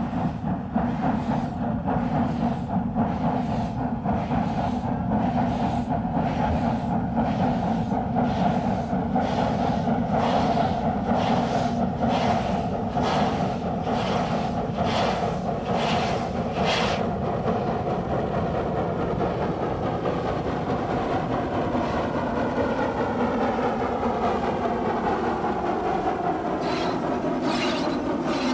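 A 2-8-0 steam locomotive working a train away, its exhaust beating about once a second. About two-thirds of the way through the beats blur into a steady running sound as the engine passes close.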